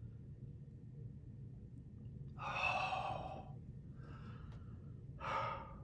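A man sighing in exasperated boredom: a long, breathy sigh, then a shorter one near the end, over a low steady hum.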